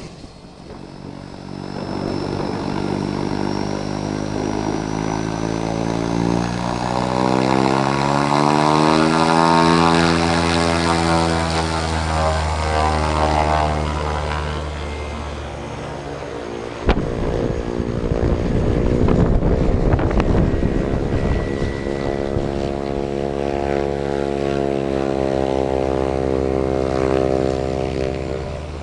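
Air Tractor turboprop agricultural planes taxiing, with a steady propeller and engine drone. One plane's pitch rises and then falls as it passes close by. A sharp knock about two-thirds of the way through is followed by a few seconds of rushing air, then a second plane's steady drone.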